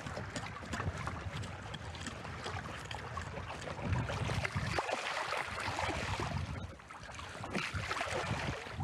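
Wind gusting on the microphone over water, with splashing as fish is rinsed by hand in the shallows, strongest about halfway through and again near the end.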